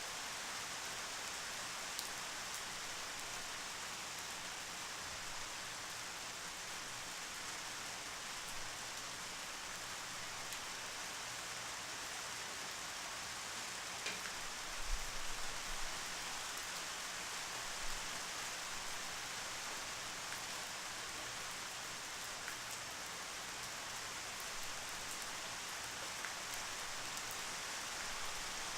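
Steady rain falling, an even hiss with scattered individual drop ticks. A few soft low thumps come about halfway through.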